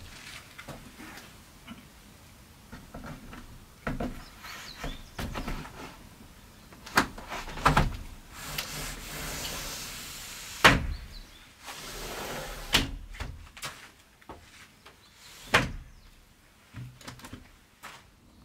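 Wooden window frame being fitted into a timber wall opening: several sharp wood-on-wood knocks, the loudest about halfway through, with two longer scraping stretches as the frame slides against the framing.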